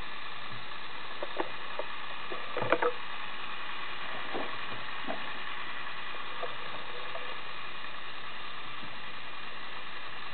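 Lego Technic 42055 bucket wheel excavator's electric motor and plastic gear train running with a steady whir. A few short plastic clicks come about two and a half seconds in.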